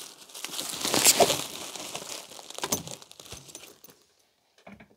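Crinkly plastic wrapping being pulled and crumpled off a camera case by hand: a dense crackling rustle for about four seconds that then dies away, with a soft knock near the end.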